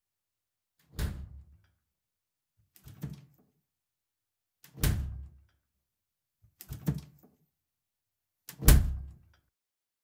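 Door of a small glass-fronted minibar fridge being opened and shut, five short knocks each with a brief ring-out. Softer knocks alternate with harder ones, and the loudest, a slam, comes near the end.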